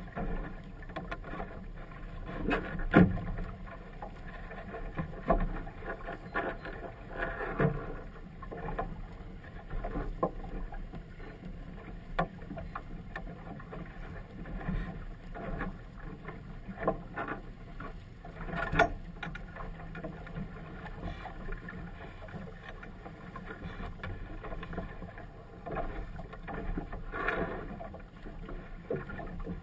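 Choppy water slapping against the side of a small boat and a large flag flapping in the wind close by, with irregular sharp snaps and slaps every few seconds over a steady wash of wind and water.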